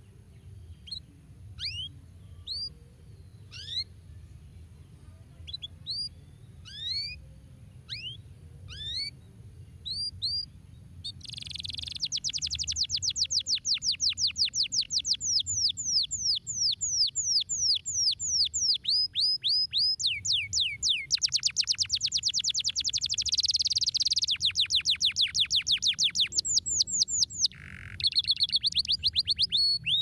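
Yellow domestic canary calling, then singing. At first single rising chirps come about once a second; about eleven seconds in it breaks into loud, continuous song of rapid repeated trilled notes, with a brief pause near the end.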